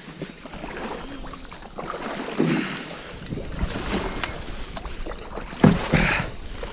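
Kayak being paddled and pushed through dense marsh reeds in shallow water: paddle strokes in the water and reeds brushing and scraping along the hull, with wind on the microphone. A few louder knocks stand out, one about two and a half seconds in and the two loudest close together near the end.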